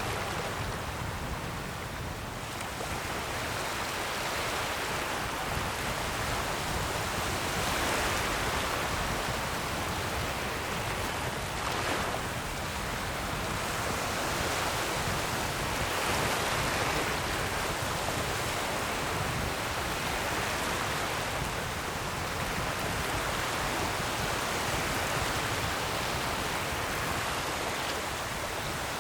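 Ocean surf washing continuously, swelling and easing every few seconds.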